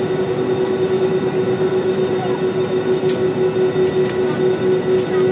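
Jet airliner cabin noise while taxiing: a steady mid-pitched hum over a constant rush from the idling engines and air conditioning, its loudness pulsing gently.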